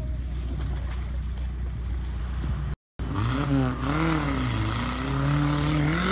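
Off-road SUV's engine running through a river ford, then revving up and down as the vehicle climbs out up a steep bank. The sound drops out for a moment about halfway through.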